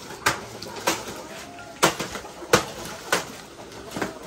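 A series of sharp knocks, six in about four seconds, like blows struck in a steady working rhythm, with faint bird calls in between.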